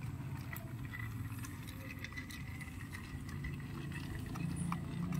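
A screwdriver turning the screw of a plastic toy train's battery cover, making a few faint clicks and scrapes over a steady low hum.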